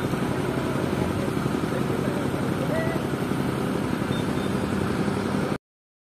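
Heavy crane diesel engine running steadily; the sound cuts off suddenly about five and a half seconds in.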